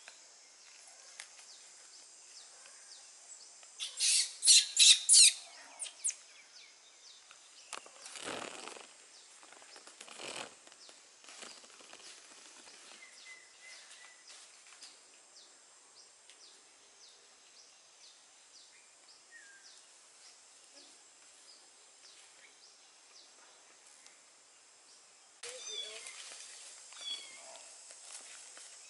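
Rustling of grass and leaves as someone walks through overgrown vegetation, with a quick run of sharp rustles about four seconds in and two broader swishes around eight and ten seconds, over a steady high hiss. Short high chirps start near the end.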